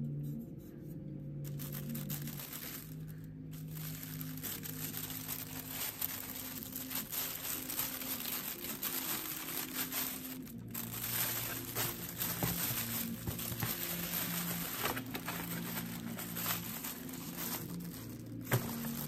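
Plastic packaging crinkling and tearing as it is handled and pulled open, starting about a second and a half in and going on with brief pauses.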